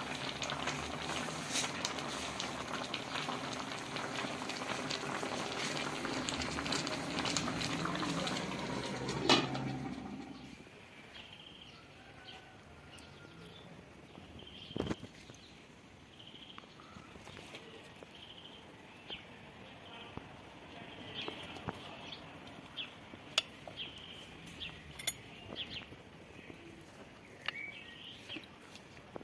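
A pot of meatballs and sliced potatoes in sauce bubbling and sizzling on the stove for about the first ten seconds, ending in a sharp clack. Then a spoon clinks against china plates as the stew is served, with birds chirping in the background.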